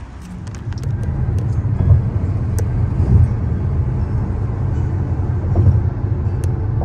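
Steady low road rumble of a car driving, heard from inside the cabin; it grows louder about half a second in and then holds steady.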